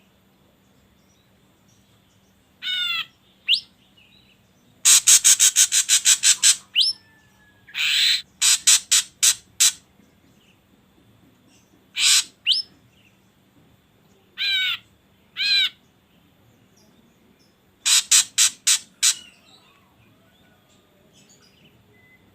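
Drongo calls in separate bursts with quiet gaps between them. The bursts mix harsh rasping notes, some in fast runs of about eight to ten, with short rising whistles and a few wavering, falling calls.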